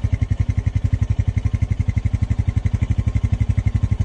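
Farm quad bike engine running steadily at low speed, an even rapid chugging of about a dozen beats a second.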